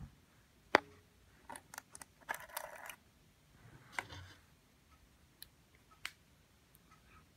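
Small hard parts being handled, as in an iMac memory upgrade: one sharp click under a second in, then a cluster of light clicks and rustling, and a few more single clicks.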